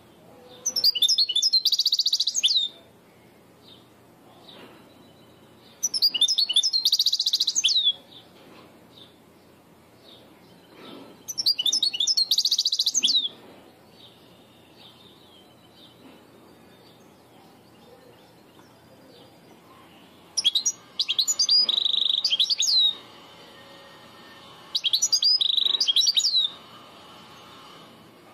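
European goldfinch singing in five phrases of rapid high chirps and trills, each about two seconds long, with quiet gaps between and a longer pause before the last two; a Levantine (Shami) style goldfinch song.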